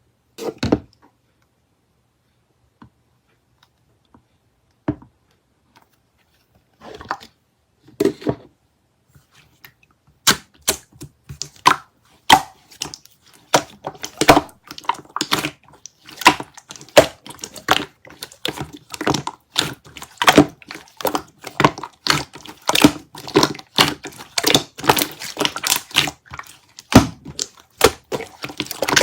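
Slime being pressed and squished by hand, making sharp pops and clicks: a few scattered at first, then a quick, steady run of them from about ten seconds in.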